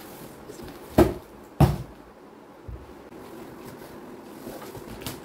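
Two heavy, dull thumps from a large cardboard shipping carton as it is pushed over onto its side, the second following the first by well under a second, then a couple of faint knocks.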